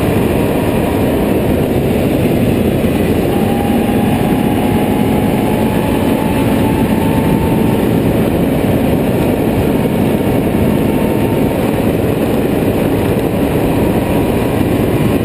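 Can-Am Renegade 800R ATV's V-twin engine running steadily at speed on a gravel road, under a constant rush of wind and tyre noise.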